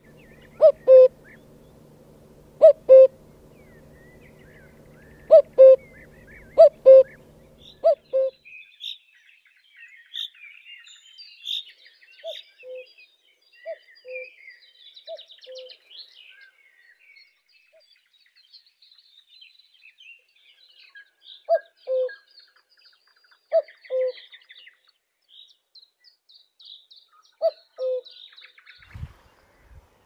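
Common cuckoo giving its two-note falling 'cuck-oo' call about ten times, in bouts with pauses between. A steady low hum runs under the first eight seconds; after that, small songbirds chirp and sing at a higher pitch behind the cuckoo.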